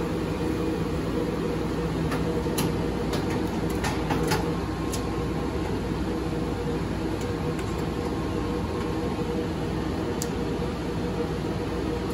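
Steady drone of the DMS-100 switch frames' cooling fans running. A few light metal clicks and taps, mostly in the first five seconds and once near ten seconds, as the mesh filter panel is fitted onto the frame.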